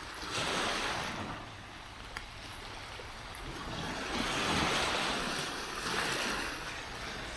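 Small waves breaking and washing up a sandy beach. The surf swells about half a second in and again, longer, from about four seconds in.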